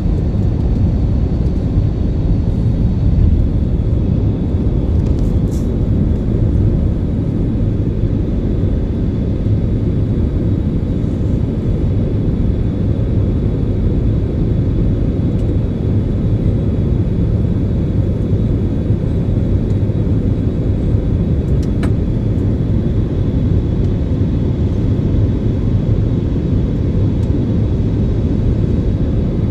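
Airliner cabin noise during takeoff: a steady low rumble of the jet engines and rushing air, with a faint high whine above it.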